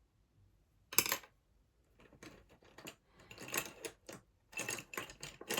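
Makeup compact and packaging being handled: one sharp plastic click about a second in, then a run of quick light clicks and taps.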